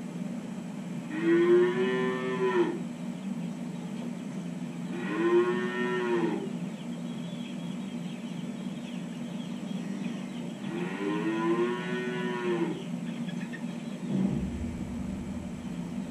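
Dairy calf mooing: three separate calls, each about a second and a half long, rising and then falling in pitch. A steady low hum runs underneath, with a brief low thump near the end.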